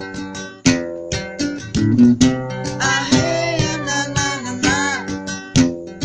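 Music: an acoustic guitar plucking and strumming an instrumental passage of a song, with sharp note attacks several times a second.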